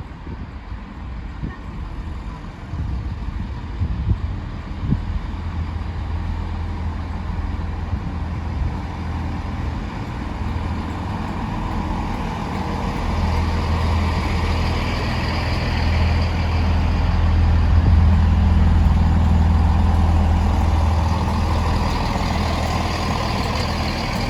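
Class 165 diesel multiple unit's underfloor diesel engine, heard from inside the carriage, running with a steady low drone. A few knocks come in the first few seconds, and from about halfway through the engine and running noise grow louder as the train works harder.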